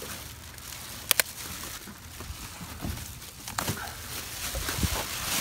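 Rummaging through trash bags in a dumpster: plastic bags rustling and crinkling as a hand digs down, with two sharp clicks close together about a second in and scattered small knocks.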